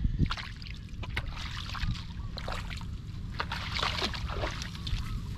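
Shallow muddy water sloshing and splashing irregularly as it is stirred by hand, over a steady low rumble.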